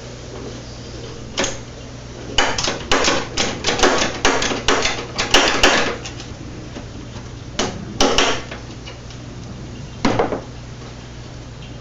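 Hand tool working a bolt loose behind a car's headlight bracket: a quick run of metal clicks and clanks for a few seconds, starting about two seconds in, then a few single knocks.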